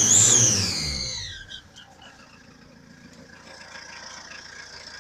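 Ford Focus 2 1.8 TDCi diesel engine with a loud, high whistle that falls in pitch as the revs drop over the first second and a half, then idling more quietly with a fainter whistle building again. The whistle is an exhaust leak from a broken exhaust manifold stud.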